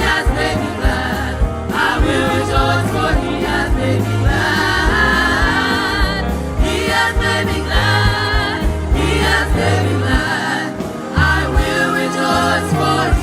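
Gospel worship song sung by a choir and congregation over instrumental backing with a steady beat.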